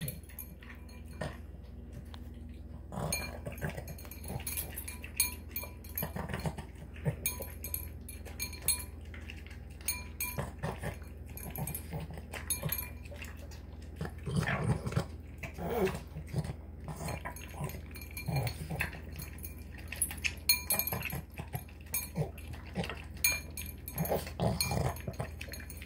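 Boston Terrier eating tuna, egg and kibble from a ceramic bowl: irregular snorting and snarfing through its short nose, wet chomping, and food clicking against the bowl. The snorting comes in thicker runs about halfway through and again near the end.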